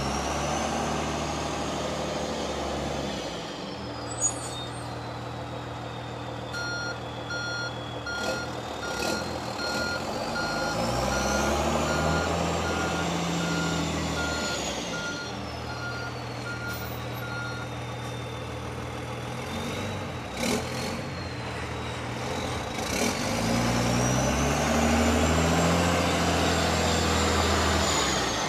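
A diesel truck engine revving up and settling back three times, with a whine that rises and falls with the revs. A steady beeping alarm sounds at about one beep a second through the middle stretch.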